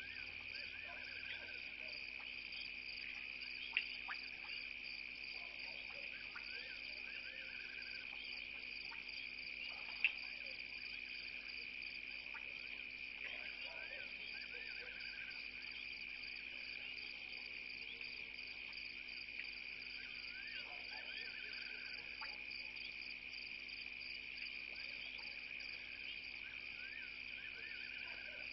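Night insect chorus, crickets trilling steadily without a break. A short call from another animal comes back every few seconds. Two sharp clicks sound, about 4 and 10 seconds in.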